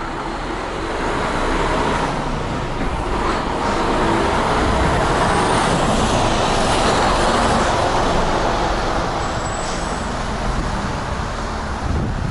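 Road traffic noise heard from a bicycle: a vehicle passing close by, swelling over the first few seconds and then easing, with wind on the microphone.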